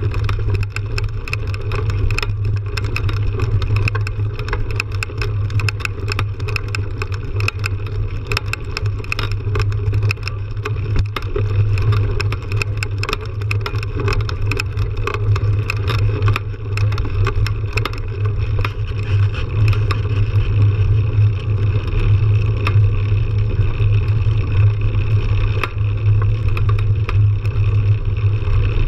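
Mountain bike rolling fast on a dirt trail: a steady low rumble of knobby tyres and wind on the bike-mounted camera, with frequent rattling clicks as the bike jolts over bumps.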